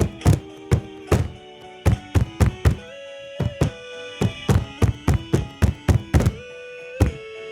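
Music made from table-bang sounds: a rhythm of sharp thuds, several a second, over held tones that bend slightly in pitch, with the thuds thinning out twice for longer held notes.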